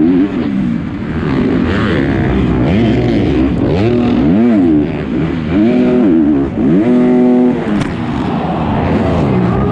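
Motocross bike engine heard from the rider's helmet camera, revving up and down repeatedly through the track's turns and jumps. About seven seconds in it is held at a steady high rev for around half a second, and just after there is a short knock as the bike goes down in a crash.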